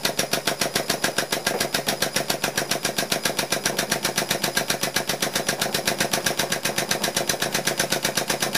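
Air-over-hydraulic press pump cycling rapidly in a steady, fast rattle of about eight strokes a second, driving the ram that pushes a keyway broach through a die blank.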